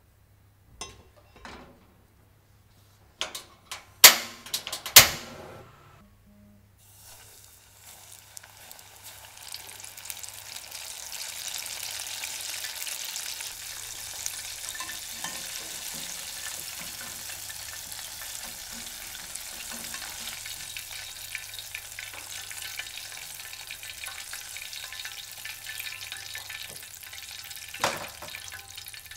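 Corn-starch-coated chicken pieces deep-frying in oil, a steady sizzle that builds up over a few seconds and then holds. It is preceded by a few sharp knocks and clatters, and a single knock comes near the end.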